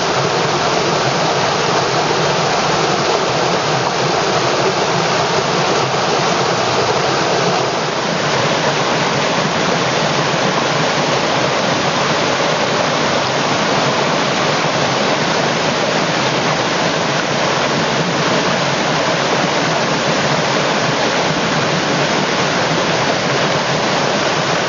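River water rushing over stones: a loud, steady wash of flowing water, with a slight shift in its tone about eight seconds in.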